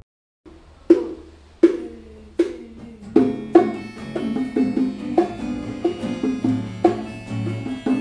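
Acoustic band starting a song: after a moment's silence, an acoustic guitar picks single notes about every three-quarters of a second, and from about three seconds in the playing thickens with more plucked notes and hand drums such as bongos.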